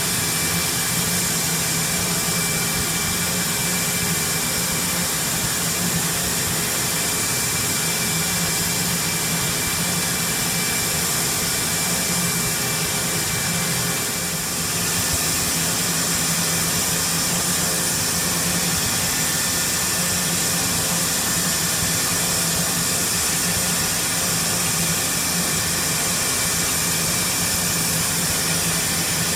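Large crankshaft grinding machine running with a Clark TCVC 20 crankshaft turning in it: a steady hissing whir over a low hum, with one thin steady tone. The level dips briefly about halfway through.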